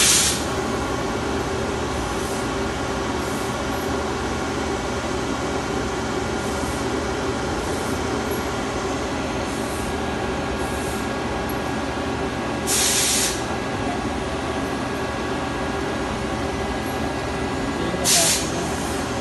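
Okuma ES-L8 II CNC lathe running as it turns a part, its spindle and chuck spinning against a turret tool: a steady machine hum carrying several steady tones. Loud short hisses come at the start, about 13 seconds in and near the end, with fainter ones between.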